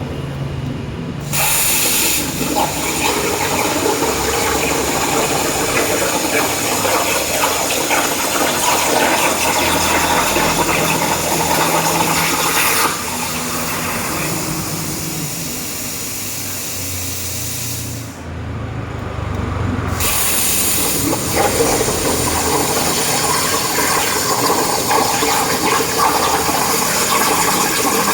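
CNC cutting torch working through a steel plate: a loud, steady rushing hiss with a low hum under it. The hiss starts about a second in and stops for about two seconds around the 18-second mark before starting again.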